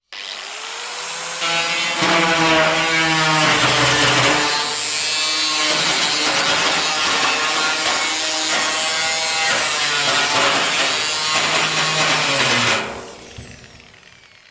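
Angle grinder switched on and spinning up with a rising whine, then grinding metal for about ten seconds, its pitch wavering as the disc is pressed in. It is switched off near the end and winds down with a falling whine.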